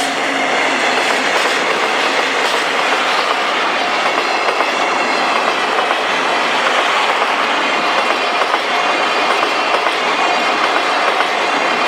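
Eleven-car express train Hamanasu running past at speed, its wheels clacking over rail joints in a steady, loud stream of rolling noise.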